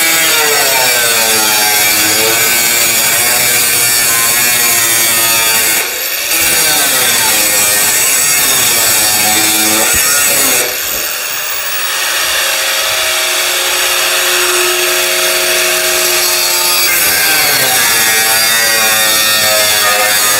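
Power tool cutting metal, running loud and steady. Its pitch sags and recovers as it loads into the cut. It stops briefly about six seconds in and again about ten seconds in, then starts up again.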